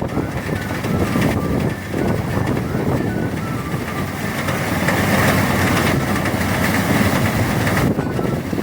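Motorised rice threshing machine running, a dense, steady mechanical rattle and hum. The noise grows louder and hissier for a few seconds past the middle, then drops back shortly before the end.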